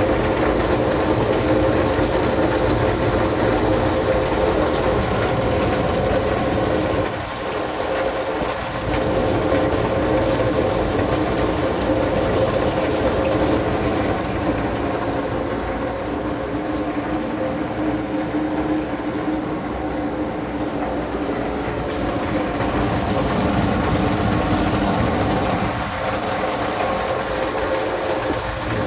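Heavy thunderstorm rain pouring on glass roof panes and windows, heard from inside as a loud, steady, dense noise with a steady hum underneath.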